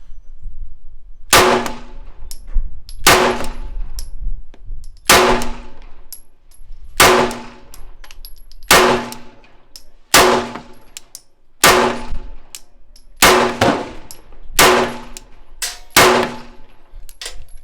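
A 9mm pistol fired about ten times at a slow, steady pace, roughly one shot every one and a half to two seconds, each sharp report followed by a brief metallic ringing.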